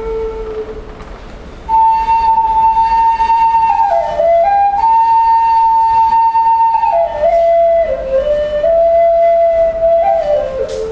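Wooden flute played solo in a slow melody. A low held note fades out in the first second, and after a short gap a long high note comes in. The tune then steps down and back up between long held notes, settling on the low note near the end.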